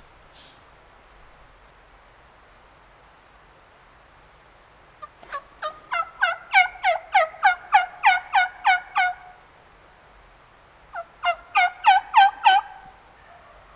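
Turkey yelping: two runs of rapid yelps, each note falling in pitch. A long run of about sixteen notes starts about five seconds in, and a shorter run of about six comes near the end.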